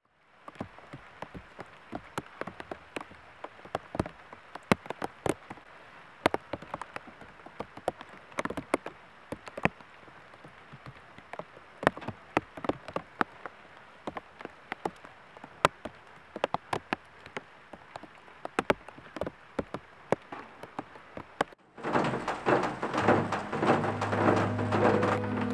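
Steady light rain, with many separate drops tapping on hard surfaces and leaves. About 22 seconds in, music comes in over it.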